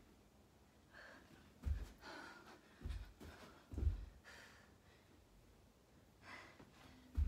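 A person breathing hard with gasping breaths during burpees, and about four dull thuds of hands and feet landing on a carpeted floor.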